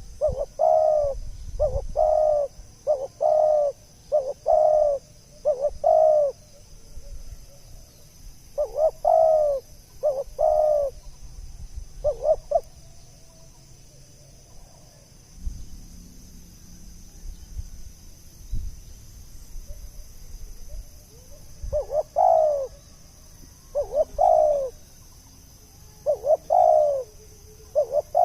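Spotted dove cooing: short, repeated coo notes in groups, first a quick run of about six, then a few more, then a long pause near the middle before further coos toward the end. A faint steady high-pitched tone runs underneath.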